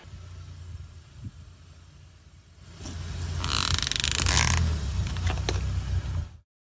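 Car running with a low rumble as its tyre rolls forward onto a small rubber squeeze toy. About three and a half seconds in there is a loud, harsh squeal lasting about a second as the toy is flattened under the tyre, then a couple of small cracks, and the sound cuts off abruptly near the end.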